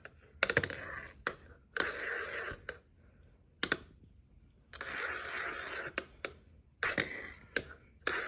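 A metal fidget top spun again and again on a spin plate: each try starts with a sharp click and gives a brief scraping whir that dies out within about a second, with failed spins, four tries in all.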